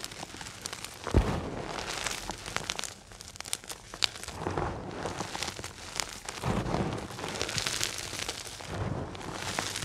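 Dry gym chalk crunching and crumbling as hands squeeze handfuls and let the chunks and powder fall back onto a heap, in repeated gritty swells with crisp crackles, and one sharp knock about a second in.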